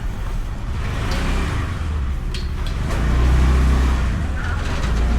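Motorbike riding noise in traffic, picked up by a microphone inside the rider's helmet: a steady low rumble of engine and road that swells about three seconds in.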